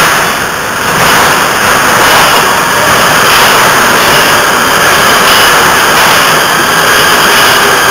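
Prague metro train entering an underground station and running past close by: a loud, steady rush of wheels on rail and running gear that swells about a second in as the cars reach the platform. A faint wheel squeal creeps in near the end.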